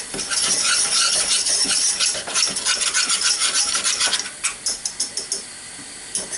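Wire whisk scraping rapidly around a saucepan, beating flour into melted butter for a roux. About four seconds in the strokes slow to scattered clicks of the whisk against the pan.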